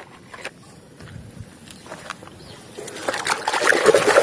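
Water splashing over a muddy plastic toy as it is washed, starting about three seconds in after a few faint clicks.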